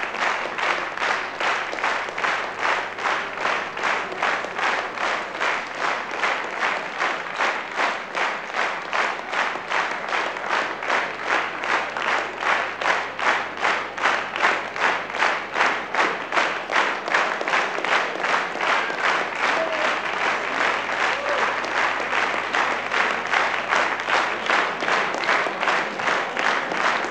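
Audience clapping in unison, a steady rhythmic beat of a bit over two claps a second, the way a crowd claps to call for more.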